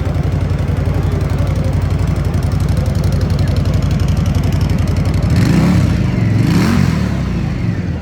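Indian Scout V-twin motorcycle idling with an even, loping exhaust beat. About five seconds in, the throttle is blipped once: the engine revs up and falls back to idle within about two seconds.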